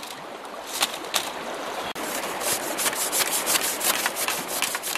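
Split bamboo strips scraping, rustling and clicking against each other as they are handled and woven into a mat. A few separate sharp clicks come first, then about two seconds in the scraping and clicking turn dense and continuous.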